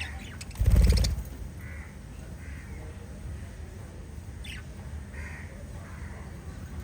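Small pet parrots chirping in short scattered notes, with one loud, harsh, buzzy squawk about half a second in.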